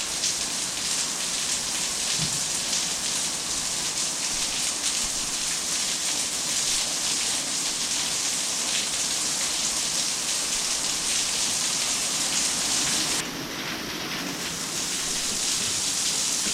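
Heavy downpour of rain: a steady, even hiss that eases briefly about 13 seconds in.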